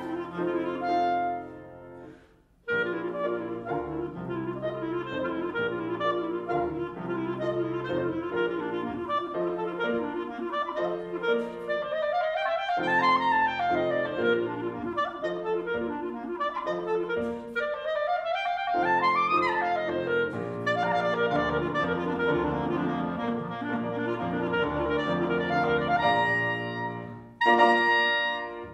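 Clarinet playing a melody with grand piano accompaniment. The music breaks off briefly about two seconds in, then resumes, with two quick clarinet runs sweeping up high and back down in the middle and a short pause near the end.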